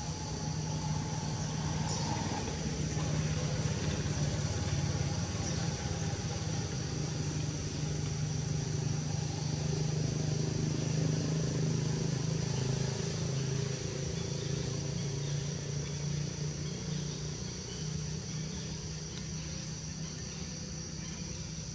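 A low, steady hum, with a continuous high-pitched insect drone over it.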